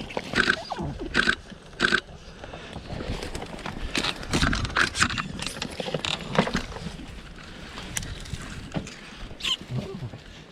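Short animal squeals, three in the first two seconds, followed by scuffling and scraping with scattered knocks as terriers hunt rats around pig feeders.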